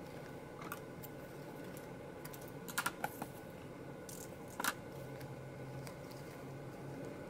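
Ribbon being handled and folded into loops: a few short crisp crackles and clicks, clustered about a third of the way in and again just past halfway, over a steady low background hum.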